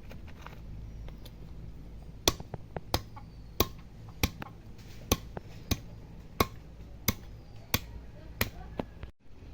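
Chopping with a blade: about a dozen sharp, evenly spaced knocks, roughly one every two-thirds of a second, starting a couple of seconds in.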